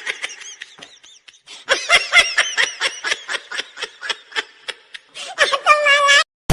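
A person laughing in a long run of short, high-pitched bursts, about four a second, ending in a longer drawn-out note.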